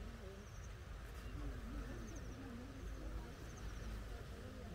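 Outdoor seaside ambience: wind rumbling on the microphone under faint, distant voices, with a faint high chirping repeated every second or so.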